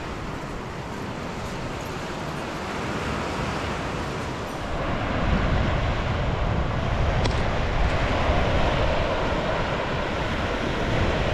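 Sea surf washing onto a beach, with wind buffeting the microphone; the wind rumble grows louder about five seconds in.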